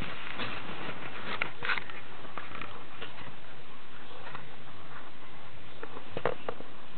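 Steady hiss with scattered light clicks and taps, from a handheld camera being moved and handled; no RC motor is running.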